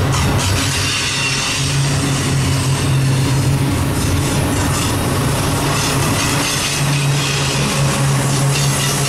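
Double-stack intermodal freight train's cars rolling past close by: steel wheels running on the rails in a loud, steady rumble with a low drone.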